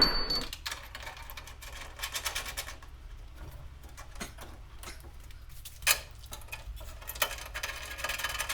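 Small metal clicks and taps of the hood latch kit's bolts and fittings being handled and fitted into the drilled holes, with one sharper knock about six seconds in.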